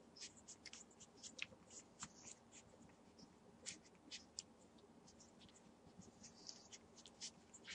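Faint, irregular wet clicks and smacks, several a second, from six-day-old Entlebucher Mountain Dog puppies suckling at their mother.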